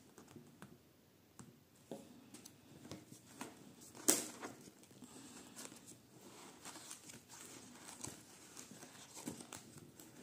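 Pages of a spiral notebook with tape-laminated paper cutouts being handled and turned: soft paper rustling and plastic-film crinkling with light taps, and one sharper snap about four seconds in.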